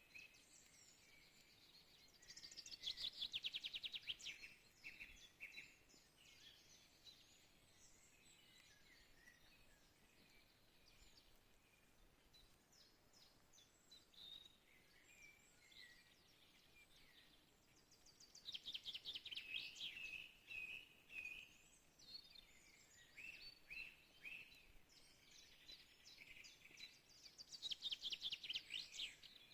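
Songbirds singing in a forest: a rapid trilled song phrase comes three times, near the start, in the second half and at the end, with scattered quieter chirps and calls between, over a faint background hiss.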